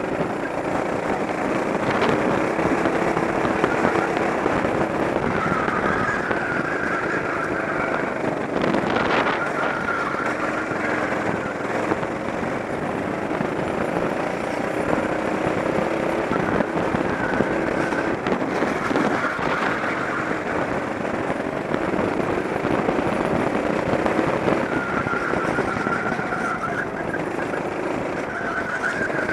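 Go-kart engine running hard on track, its pitch rising and falling again and again as it accelerates out of corners and eases off into them.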